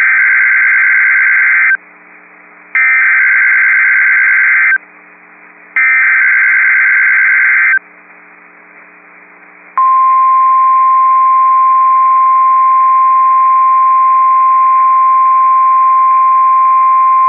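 Emergency Alert System activation on NOAA Weather Radio. Three bursts of SAME digital header tones, each about two seconds long and a second apart, are followed about ten seconds in by the steady single-pitch warning alarm tone. Together they signal a civil emergency message.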